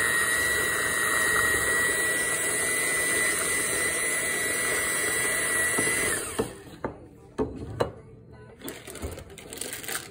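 Electric hand mixer running steadily with a whine, its beaters churning batter in a bowl, then switched off about six seconds in. A few short knocks follow.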